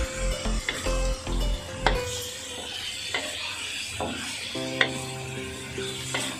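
Chicken pieces sizzling in a black wok while a wooden spatula stirs and turns them. The spatula makes scattered sharp clicks and scrapes against the pan.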